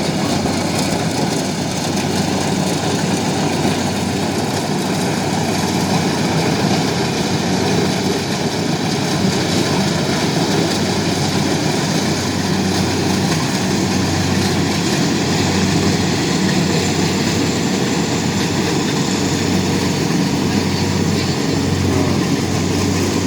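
An engine running steadily at an even speed, a constant low drone with no breaks.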